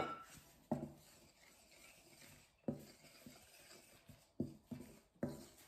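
Wooden spoon stirring dry glutinous rice flour and tapioca flour in a glass mixing bowl. It gives about five short knocks and scrapes against the glass, with a faint rubbing of flour between them.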